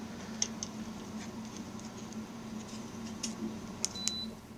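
Light, scattered ticks and patters, a few of them sharper, over a steady low hum.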